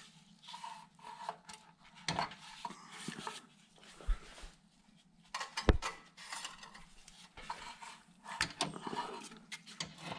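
Hand tools and parts being handled while working on an HMMWV's lower radiator hose: irregular metallic clinks, scraping and rubbing, with a few sharp knocks, the loudest a little past halfway through.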